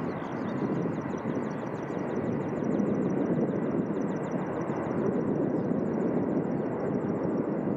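Boeing 747SP jet engines running, a steady rumbling rush of jet noise.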